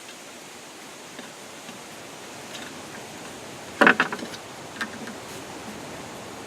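A quick cluster of sharp metal clicks and clanks about four seconds in, then a single click a second later, from the table saw's anti-kickback pawl and blade guard parts being handled and fitted. A steady hiss runs underneath.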